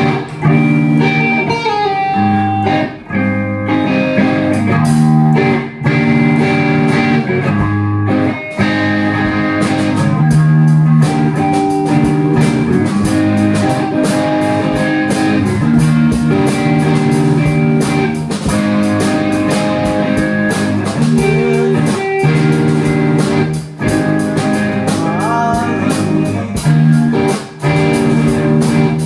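Live rock band playing an instrumental passage: electric guitars over a steady drum beat.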